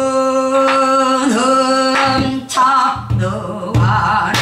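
A female pansori singer holds one long, steady note for about two seconds, then lets it break into a wavering, shaking vocal line. Several sharp knocks cut through the singing, the strongest near the end.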